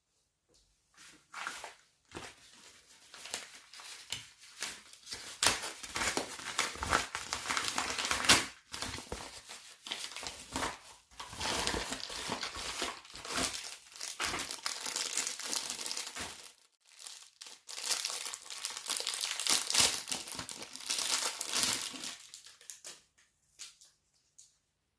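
Packaging being crinkled, handled and torn open by hand as a parcel is unwrapped, in irregular crackling bursts with a short pause about two-thirds of the way through.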